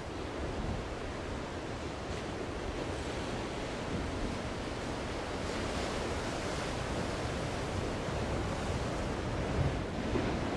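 Strong wind buffeting the microphone over the steady rush of heavy storm surf breaking offshore.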